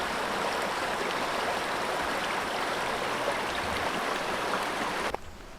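Steady rush of a mountain stream's flowing water, cutting off suddenly about five seconds in.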